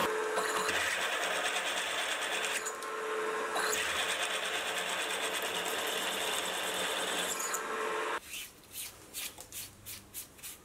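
Sieg X2.7L mini milling machine running, its twist drill cutting a counterbore in hot rolled steel, a steady machine sound that eases briefly around three seconds in. It stops abruptly about eight seconds in, followed by a few faint knocks.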